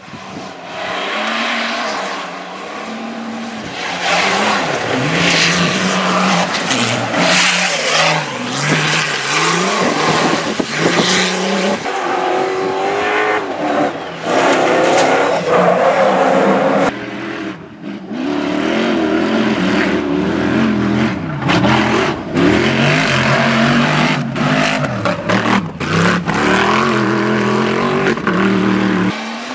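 Cross-country rally cars racing at full throttle, engine notes climbing and dropping back again and again with gear changes, over tyre and gravel noise. Several runs are cut one after another, with a sudden change about 17 seconds in.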